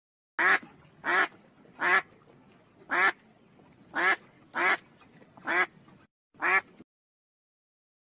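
Mallard duck quacking eight times at irregular intervals, about once a second, each quack short and nasal.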